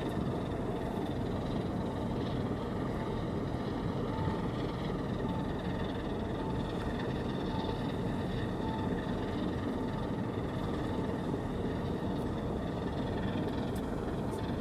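Steady low rumble of ship engines heard across the water, with a faint short beep repeating at regular intervals.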